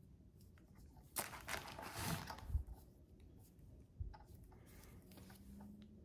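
Workbench handling noises from hands and diagonal cutters working wires on a headlight: a burst of rustling and scraping about a second in, lasting about a second and a half and ending in a low thump, then a single sharp click about four seconds in.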